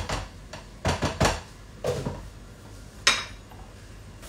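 Spoon knocking and scraping against a cooking pan while vegetables are stirred and turned: a few sharp strokes in the first two seconds, then a single bright clink about three seconds in.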